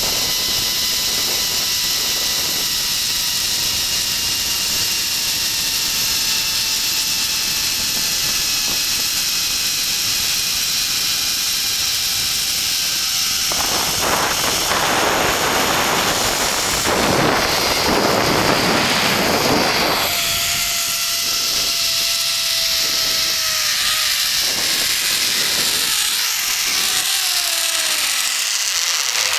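Zipline trolley pulleys running along the steel cable with a steady whine under rushing wind on the microphone. The whine slowly falls in pitch, a louder rush of wind comes for several seconds about halfway, and near the end the whine glides steeply down as the trolley slows into the landing platform.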